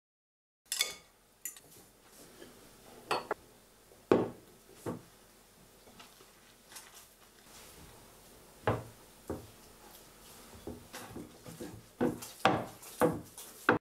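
Hands mixing flour into a liquid and kneading bread dough in a glass bowl, with soft rustling and a series of sharp, irregular knocks and clinks of the glass bowl that come closer together near the end.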